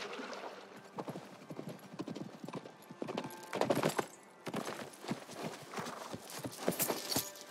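Horse hoofbeats at a run: a fast, irregular clatter of hoof strikes, loudest about three and a half seconds in and again near the end.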